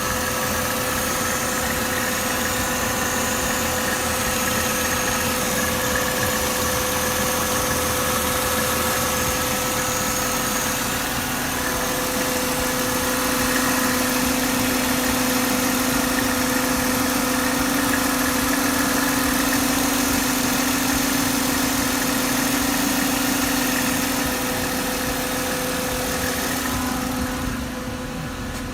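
Mercedes-Benz C230's M272 V6 engine idling steadily, with a new belt tensioner, two guide pulleys and a fan belt fitted to cure a noise from the tensioner. The sound drops away about a second before the end.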